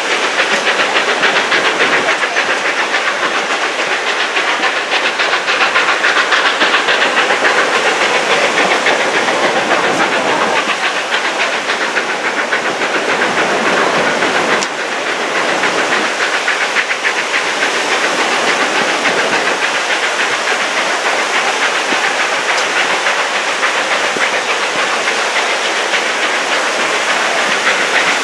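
A narrow-gauge steam train heard from an open passenger car: a steady rushing of the locomotive's steam exhaust, with the wheels clicking along the rails. The loudness dips slightly about halfway through.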